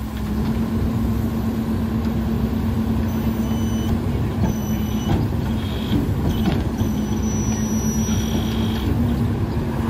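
Garbage truck engine sped up to a steady high idle while the McNeilus rear loader's hydraulic packer runs; the engine comes up about a third of a second in and holds, with a few short knocks and squeals midway.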